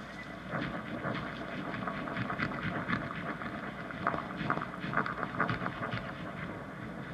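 Freely improvised drums and guitar in a noisy textural passage: dense scraping and rustling with many irregular light clicks, and no clear melody or beat.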